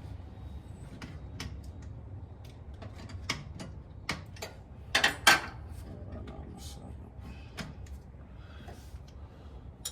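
Metal hand tools clicking and clacking as they are handled and set back into a storage case, with two louder knocks about five seconds in.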